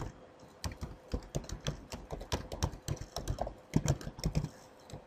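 Typing on a computer keyboard: an irregular run of quick key clicks, starting about half a second in.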